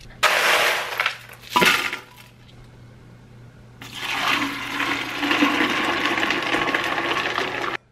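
Ice cubes clattering into a large glass jar in two loud bursts, then hibiscus tea pouring steadily over the ice from about four seconds in, cutting off suddenly near the end.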